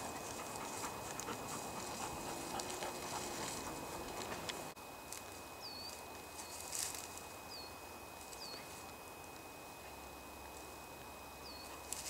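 Footsteps brushing and crunching through dry grass and dead undergrowth, then, after a break, a dog rustling about in brambles while a small bird gives short, hooked high chirps about five times.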